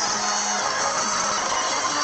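Music from the meme being watched, with held low notes changing pitch every half second or so over a dense, bright backing.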